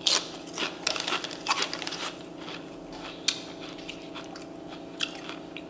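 A person crunching and chewing tortilla chips: dense crunches for the first two seconds or so, then only a few scattered crunches, with a steady low hum underneath.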